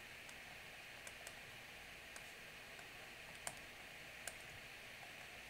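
Faint taps and clicks of a pen stylus on a tablet writing surface as an equation is handwritten: a handful of scattered ticks, two louder ones in the second half, over a steady low hiss.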